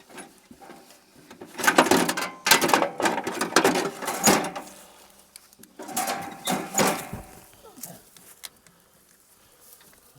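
Homemade hand-cranked winch ratcheting with rapid clicks and rattles as it is cranked to tighten down a hay load, in two spells: a longer one about two seconds in and a shorter one about six seconds in.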